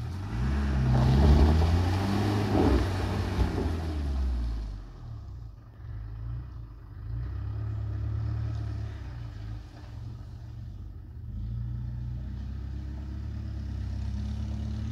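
Land Rover Discovery 1's 200Tdi four-cylinder turbodiesel engine revving under load as the truck climbs muddy ruts. It is loud for the first four seconds or so, then settles into a quieter, steadier run as the vehicle moves off up the track.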